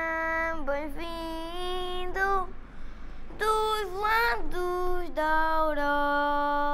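A boy singing a Cante Alentejano verse alone and unaccompanied, in long held notes that slide between pitches, with a pause for breath about two and a half seconds in.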